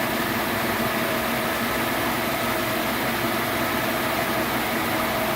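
Gleason punch and die grinder running steadily: an electric motor belt-driving a 7-inch grinding wheel, an even hum and whir with a faint steady tone.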